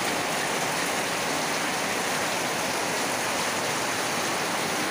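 Heavy rain pouring down in a steady, even hiss, with water streaming off the edge of a roof.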